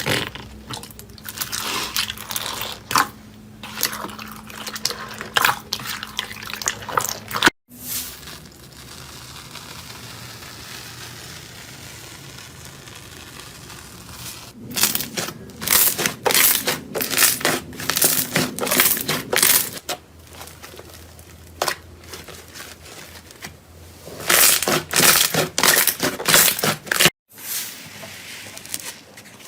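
Slime being squeezed and poked by hand in several short clips: runs of sharp, crackling clicks and squelches, with quieter stretches of soft noise between them.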